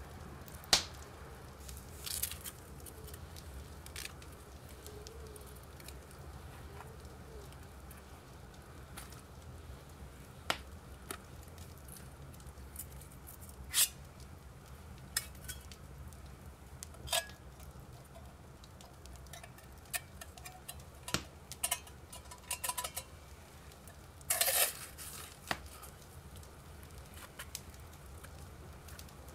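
Metal camp cookware being handled: scattered clinks and taps of metal on a metal pot, some ringing briefly, with a short run of clinks near the end, over a low steady rumble.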